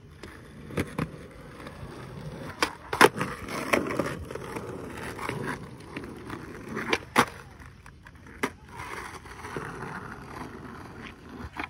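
Skateboard wheels rolling on pavement, with several sharp clacks of the board striking the ground as it pops and lands; the loudest come about three seconds in and about seven seconds in.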